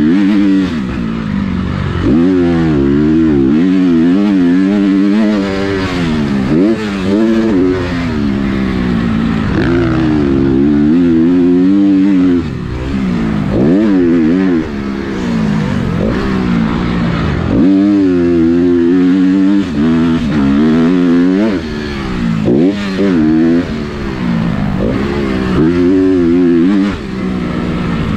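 Motocross dirt bike engine at race pace, heard from on the bike: the engine note climbs again and again as the throttle is opened, then drops away as it is chopped for jumps and turns.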